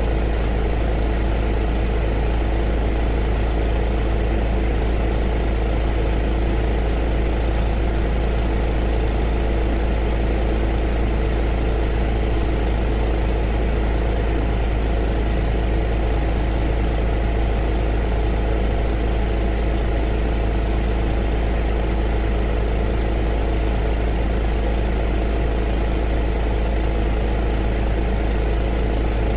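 Heater running: a steady, unchanging rush of noise over a strong deep hum, with a few faint steady tones in it.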